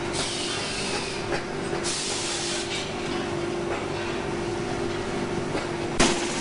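Shoe-factory stitching machinery running with a steady hum and scattered light clicks. Two short hisses come in the first three seconds, and a single sharp knock comes near the end.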